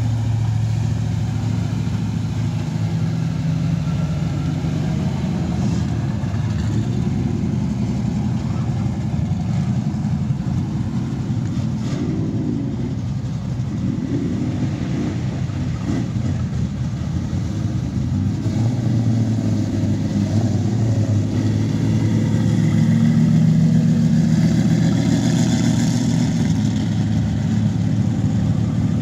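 Street cars' engines rumbling at low speed as they drive past one after another. A louder car goes by about three-quarters of the way through.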